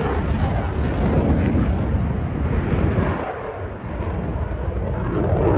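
Fighter jet's engines during a display pass: a loud, continuous jet rumble that dips a little past the middle and swells again near the end.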